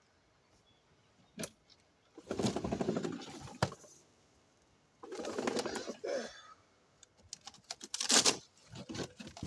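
Two long strained groans of effort from a man heaving a heavy mower, then several sharp scrapes and knocks from the box and mower near the end, the loudest about eight seconds in.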